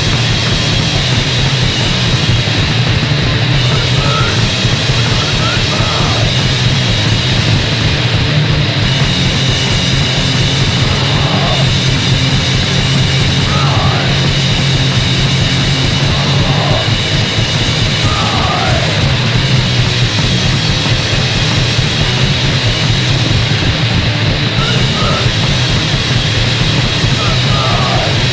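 Punk band demo recording: distorted guitar, bass and drums in a dense, continuous wall of sound, with short shouted vocal phrases now and then.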